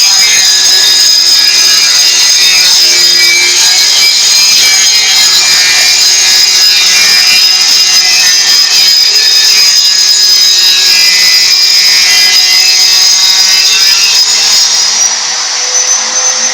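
Homemade electric tile-cutting machine running, its spinning disc cutting through a floor tile with a loud, steady grinding whine. About fifteen seconds in the cutting noise eases a little and the motor's pitch rises slightly.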